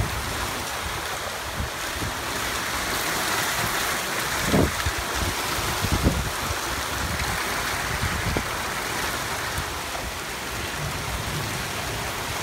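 Heavy downpour of rain, a steady hiss of falling water. A few short gusts of wind rumble on the microphone about halfway through.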